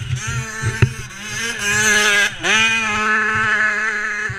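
KTM 85 two-stroke motocross bike engine revving hard under acceleration: the pitch climbs, drops sharply about two and a half seconds in at a gear change, then rises again. Irregular low buffeting of wind on the camera microphone runs underneath.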